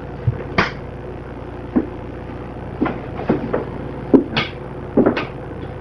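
A steady low electrical hum with about ten short, irregular clicks and knocks as the oscilloscope's controls are handled.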